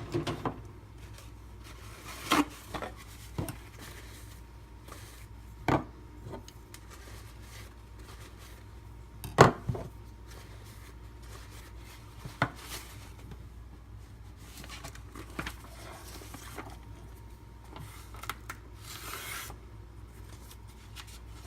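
Scattered clinks and knocks of knives and sharpening gear being handled and set down on a hard surface. There are about six sharp ones, the loudest near the middle, over a faint steady hum.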